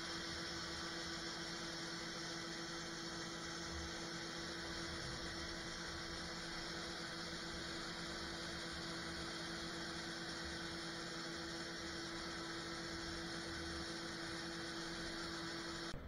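John Deere 9500 combine running steadily while its unloading auger pours shelled corn into a grain cart: a constant machine drone with a steady hum tone.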